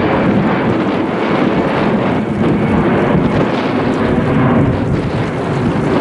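Loud, steady rumble of a jet airliner's engines, with wind buffeting the microphone.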